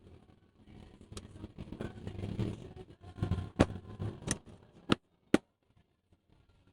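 Handling noise from work on a laptop: rustling and scraping, then four sharp clicks, about a second apart or less, in the second half.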